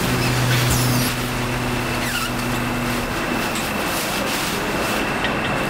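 Garbage compactor truck running at its rear loading hopper, its engine and packer making a steady hum that drops away about three seconds in, over constant machine noise.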